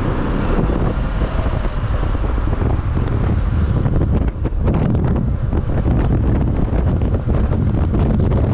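Wind blasting the microphone on a moving motorcycle taxi, with the motorcycle's engine and road noise underneath.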